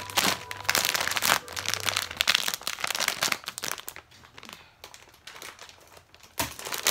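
Plastic packaging crinkling and rustling as it is handled, in dense irregular crackles for the first three seconds or so, then quieter, with another burst of crinkling near the end.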